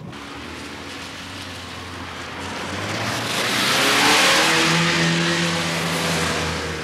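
A car driving fast through a deep puddle on a wet road: a swelling hiss of water spray that peaks about four seconds in, with the engine running beneath it.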